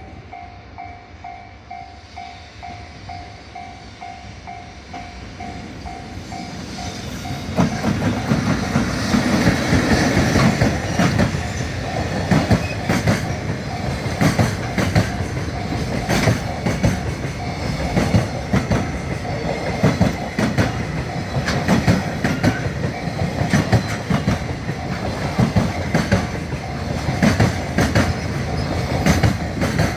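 Level-crossing alarm clanging at about two strokes a second, then a freight train arrives about seven seconds in and runs past. Its wheels clatter over the rail joints in a steady rhythm that all but drowns out the alarm.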